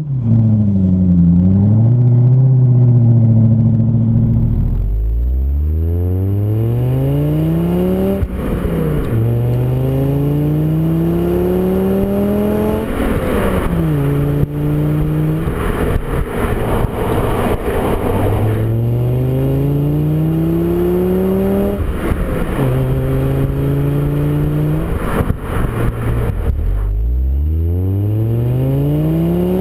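For the first few seconds, a BMW 545i's V8 with a Magnaflow exhaust running under light load. Then a VW Golf Mk6's 2.5-litre five-cylinder with a Mk6 GTI exhaust and Magnaflow resonator, heard right at the tailpipe, accelerating hard through the gears: the engine pitch climbs and drops back at each upshift, with short spells of steady cruising between pulls and a new pull from low revs near the end.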